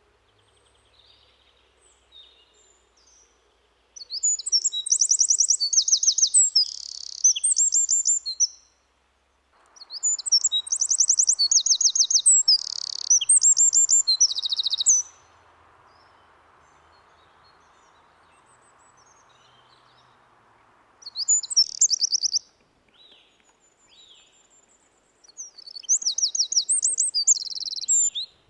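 Eurasian wren singing: loud, fast, high-pitched trills and rattles in four song bursts of a few seconds each, one of them brief, with pauses between.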